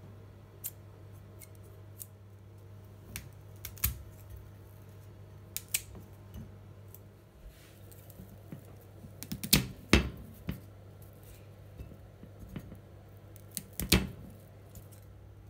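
A kitchen knife cutting broccoli florets off the stalk: scattered crisp cuts and snaps, the loudest a little past the middle and again near the end.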